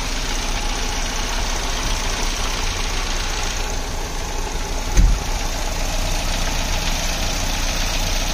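Mercedes-Benz M102 2.0-litre eight-valve four-cylinder engine, running on electronic fuel injection from a homemade ECU, idling steadily. A single short thump sounds about five seconds in.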